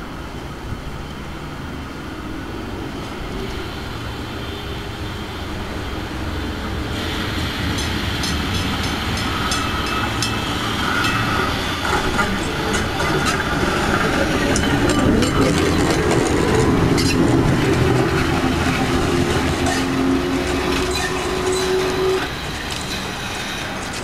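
1905 BC Electric interurban car 1207 approaching along the track, growing steadily louder, with a steady humming tone and wheels clicking over the rails. The sound drops abruptly near the end.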